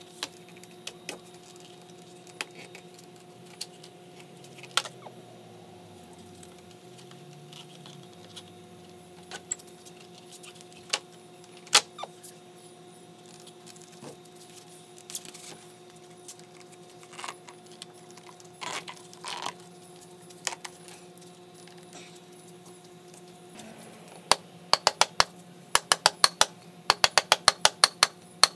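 A door-bottom seal being worked onto the bottom edge of an exterior door by hand: scattered plastic clicks and knocks as it is pushed along, then a quick run of sharp, loud taps over the last few seconds.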